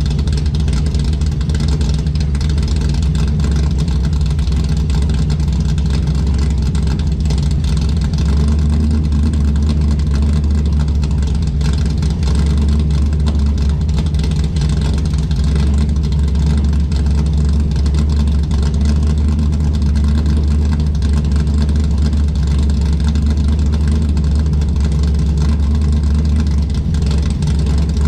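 Ford Mustang engine idling steadily as it warms up from a cold start in freezing weather, a constant low hum.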